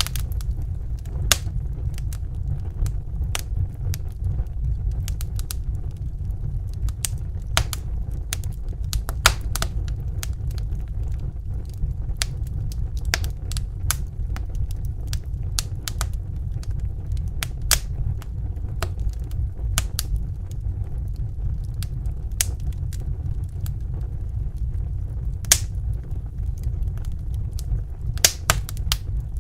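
Wood fire burning in a fireplace: a steady low rumble of flames with irregular sharp crackles and pops, a few louder pops close together near the end.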